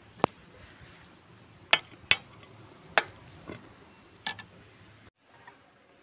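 Metal skimmer ladle clinking and scraping against a metal kadai while stirring chicken and fenugreek leaves: about six sharp clinks over four seconds, then the sound cuts off suddenly about five seconds in.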